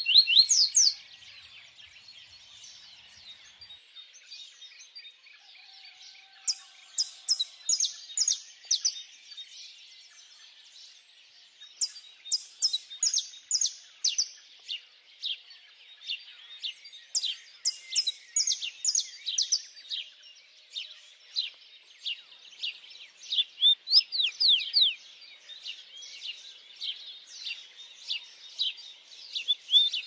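Songbirds singing: one bird repeats loud phrases of quick, sharp whistled notes every few seconds, over a steady background chorus of other birds chirping.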